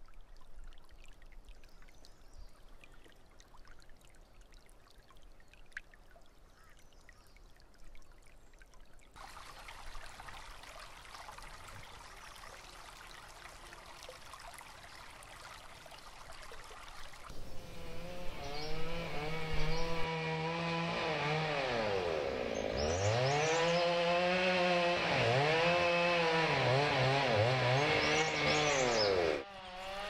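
Water in a small stream trickling softly, then a small engine running loudly from about halfway through, its pitch dropping and rising again and again as it revs down and up, cutting off just before the end.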